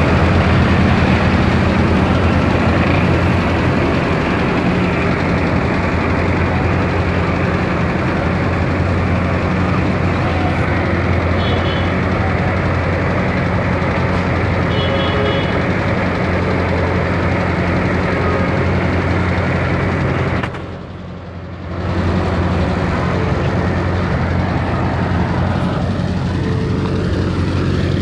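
Bobcat 753 skid steer loader's diesel engine running steadily as the machine drives about. The sound briefly dips and goes dull for about a second roughly three quarters of the way through.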